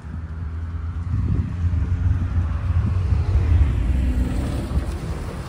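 Diesel locomotive engines of a three-unit light engine move running: a loud low drone with a deep pitched hum. It swells about a second in, is loudest past the middle, then eases off.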